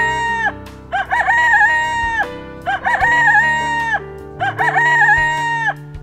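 Rooster crowing cock-a-doodle-doo, three full crows about two seconds apart, each call the same falling-and-held shape, over light background music.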